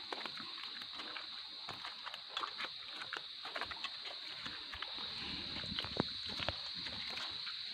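Footsteps and light rustling on a dirt trail, many scattered soft clicks, over a steady high-pitched hum.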